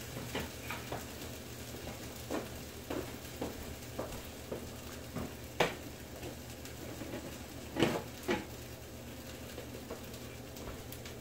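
Food sizzling in a frying pan on the stove, with scattered clinks and knocks of dishes and utensils; the loudest knock comes about halfway, and two more come close together about three quarters through.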